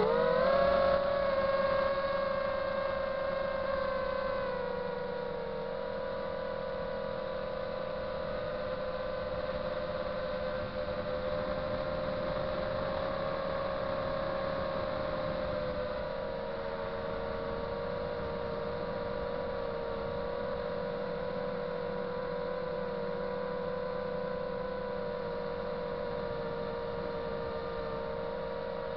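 FPV quadcopter's brushless motors and propellers whining steadily, heard from the aircraft's onboard camera. The pitch rises about a second in, then eases down a little twice as the throttle changes. The sound gets quieter over the first few seconds.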